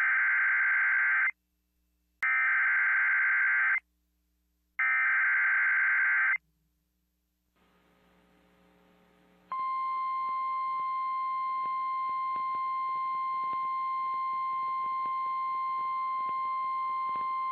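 Emergency Alert System broadcast: three bursts of buzzing digital SAME header tones, each about a second and a half long, then after a pause a steady electronic attention tone starts about nine and a half seconds in and holds.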